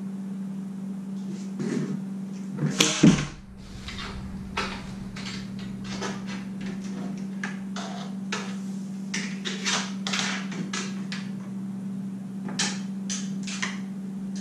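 Fishing rods and PVC pipe being handled: a run of light clacks and knocks as a rod is set into a PVC rod-holder stand, with a louder clatter about three seconds in. A steady hum runs underneath.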